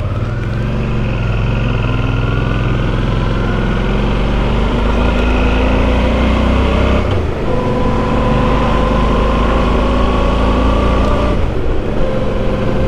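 Motorcycle engine accelerating, its pitch climbing steadily, with a gear change about seven seconds in. It then runs evenly, with another change in pitch near the end.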